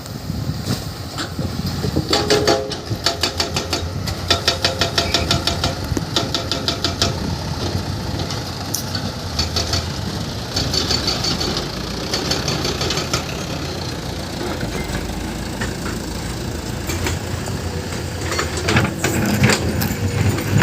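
Hydraulic excavator's diesel engine running steadily, with rapid runs of sharp metallic knocks and clacks, several a second, from about two to seven seconds in and again near the end.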